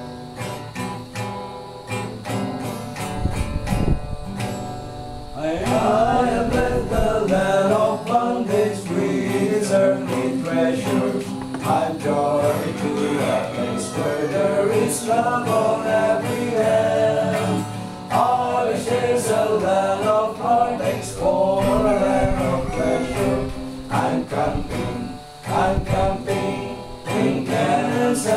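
Acoustic guitar strummed alone, with a small group of men joining in about five seconds in, singing a gospel hymn together to the guitar.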